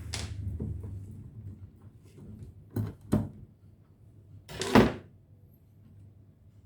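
Portable Bluetooth speaker's casing and parts being handled during disassembly: a click, two quick knocks about three seconds in, then a louder clunk just before five seconds.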